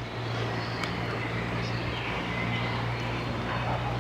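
Steady low mechanical hum under a constant background rush.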